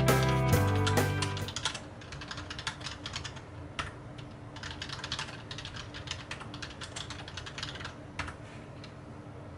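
Intro music ends about a second and a half in, giving way to fast typing on a Logitech K480 Bluetooth keyboard: a quick, uneven patter of key clicks that dies away about a second before the end.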